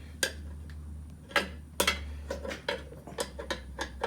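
Light metallic clicks and clinks of hand tools being set against the hose reel's metal fittings, about a dozen irregular taps, over a low hum that stops about three seconds in.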